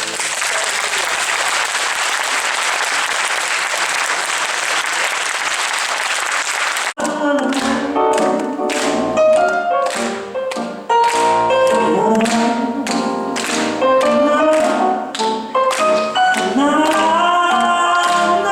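Audience applauding for about seven seconds, then after an abrupt cut a live song: a singing voice over a rhythmic accompaniment with regular struck beats.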